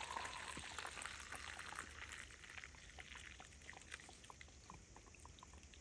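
Coffee being poured from a small titanium French-press cup into a mug: a faint trickle that thins and fades, with small light pops.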